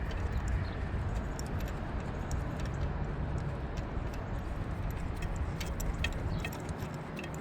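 Light metallic clicking of hand tools at the engine bay, scattered through the second half, over a steady low background rumble.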